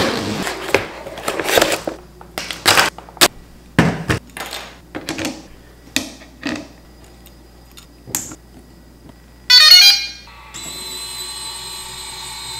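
Handling noises from a DJI Inspire 1 drone being unpacked and assembled: a hard case opened, then a run of sharp clicks and knocks as parts and propellers are fitted. About 9.5 s in, a short loud run of rising beeps as the drone powers up, followed by a steady hum with several tones.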